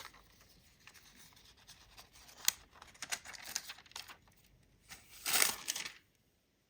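Clear slime mixed with glitter petals being stretched and squished by hand, giving off small crackles and clicks. The loudest stretch of crackling comes about five seconds in, then the sound cuts off suddenly.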